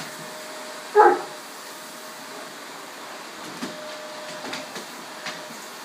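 A dog gives one short bark about a second in, over the steady hum of a running vacuum cleaner; a few faint clicks follow.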